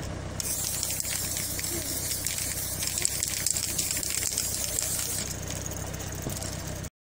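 Aerosol spray-paint can hissing in a long burst onto a bicycle frame, starting about half a second in and easing off after about five seconds, over a steady low hum. The sound cuts out abruptly just before the end.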